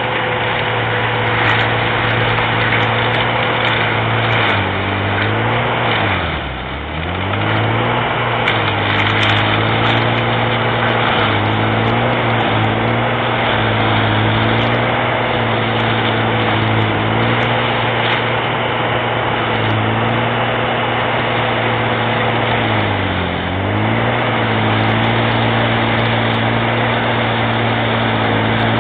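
Diesel engine of a Galotrax 300 tracked carrier running hard, driving a BF 501 forestry mulcher head through brush, with a steady drone over the rough grinding of the rotor. The engine pitch sags twice under load, deeply about a quarter of the way in and briefly near the end, then picks back up.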